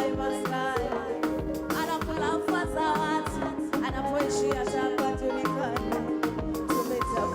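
Live concert music: a singer over a band with a steady beat.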